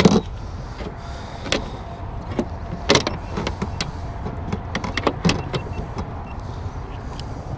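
A landing net's handle and fishing gear knocking and clattering against a boat's deck and gunwale in a few sharp knocks, over a steady low hum.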